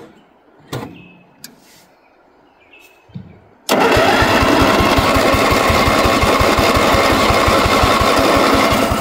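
A 1960s Bolens 1050 garden tractor's 10 hp engine being cranked by its starter. It starts suddenly a little under four seconds in, runs loud with a rapid even chugging for about five seconds, and stops near the end. The engine does not catch, which leads the owner to suspect fuel delivery.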